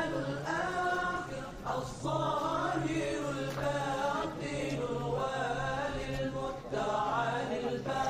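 Chanted Islamic recitation: a single voice holding long notes that rise and fall, over a steady low hum.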